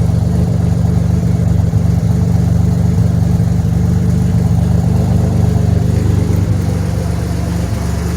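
2007 Pontiac Grand Prix engine idling steadily, freshly started after a week of cranking without starting.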